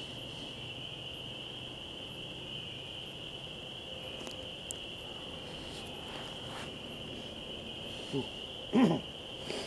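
A steady, faint high-pitched whine runs under the quiet woods. Near the end a person makes two short vocal sounds, the second louder and bending in pitch.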